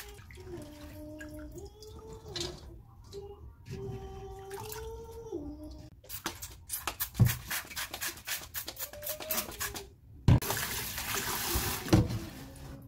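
Kitchen tap water splashing and dripping into a stainless steel colander of perilla leaves in a sink, with scattered sharp splashes. About two-thirds of the way in, the tap runs in a full, steady rush. Over the first half a soft melody of held notes is heard.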